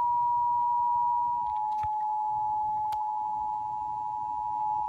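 Emergency Alert System attention signal: the steady two-tone alarm of 853 and 960 Hz sounding from a TV, announcing a severe thunderstorm warning.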